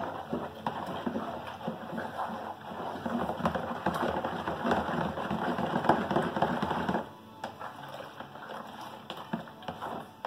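Foamy homemade liquid laundry soap being stirred briskly with a long-handled spoon in a plastic bowl, mixing in salt brine to thicken it: continuous sloshing and splashing that eases off about seven seconds in.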